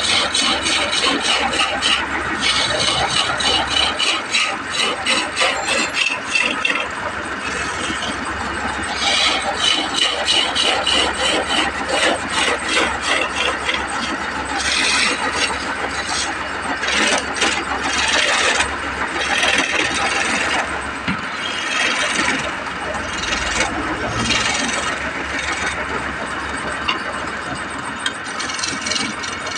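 Wood lathe spinning a turning blank while a hand-held turning chisel cuts into the wood. The rasping scrape of the cut comes and goes in stretches of a few seconds as the tool is pushed in and eased off.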